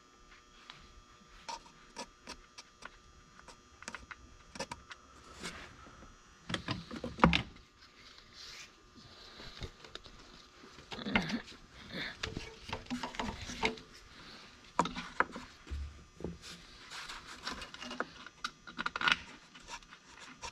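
Irregular clicks, light knocks and scraping of metal parts and wiring being handled by hand while a knock sensor is fitted to an engine's valve cover. The loudest knock comes about seven seconds in.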